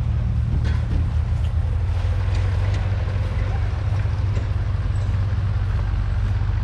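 1985 Scania 112M 360's 11-litre straight-six diesel engine idling steadily, a low, even rumble.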